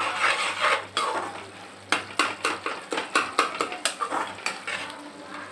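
Perforated steel spoon stirring thick masala in a metal kadai, scraping the pan at first, then clinking sharply against its sides about four times a second from about two seconds in.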